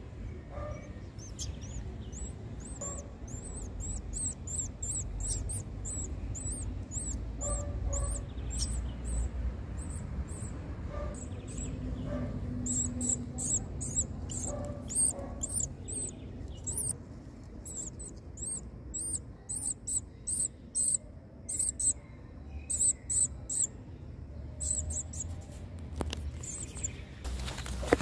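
Nestling birds begging: a rapid, high-pitched run of short chirps that keeps going with brief pauses, over a low rumble.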